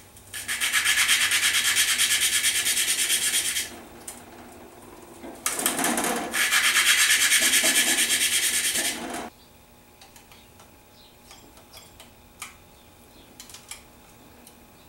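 Engine valve being lapped into its seat: spun back and forth by a suction-cup lapping stick against grinding compound, giving a rapidly pulsing gritty rasp in two spells of about three to four seconds each. A few faint taps follow near the end.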